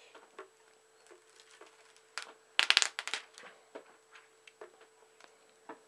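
Handling noise: scattered clicks and rustles as a Kindle e-reader is picked up and turned over by hand on a wooden table, with a short run of louder knocks and rustles a little before the middle.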